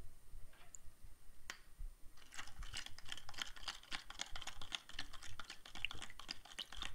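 Powdered raspberry drink mix being stirred in a clear plastic cup of water: a quick, steady run of light clicks as the stirrer knocks against the cup wall, starting about two seconds in after a single click.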